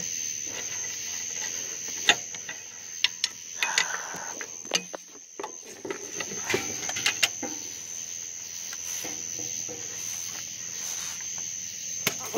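Irregular sharp metallic clinks and knocks of a steel pry bar working against a car's water pump and engine parts, a few separate strikes spread over several seconds, over a steady high-pitched tone.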